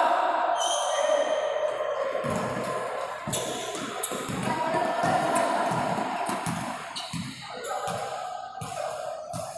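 Basketball game in a gym: repeated thuds of the ball bouncing and players' feet on the court, with music playing underneath.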